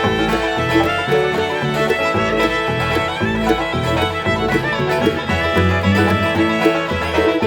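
Bluegrass band playing an instrumental break, with fiddle and banjo over guitar and a walking low bass line.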